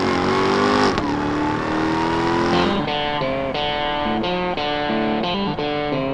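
Supercharged 6.2-litre V8 of a Ram 1500 TRX accelerating hard, its pitch rising, dropping at an upshift about a second in, then rising again. From about three seconds in, rhythmic electric-guitar music takes over.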